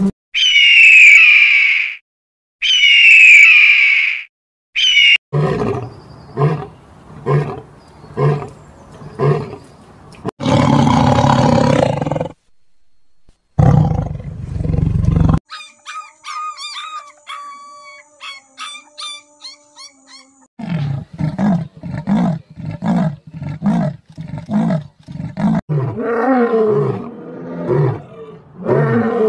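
A run of different animal calls one after another, with roars among them: two high falling calls, a series of rhythmic grunting pulses, loud noisy calls, high chirping, then more rhythmic pulses.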